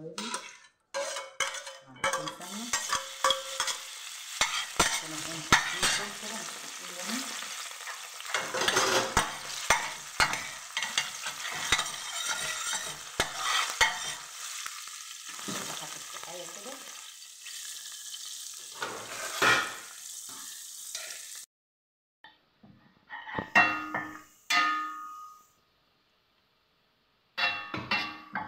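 Small chopped pieces sizzling in hot oil in a stainless steel pan while a spoon stirs them, clinking and scraping against the metal. The sizzle cuts off abruptly about three-quarters of the way through, and a few separate clatters follow.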